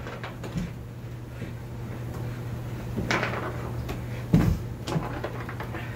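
Soccer ball drag-backs and touches with feet stepping on a rug: a few soft thumps, the loudest about four and a half seconds in, over a steady low hum.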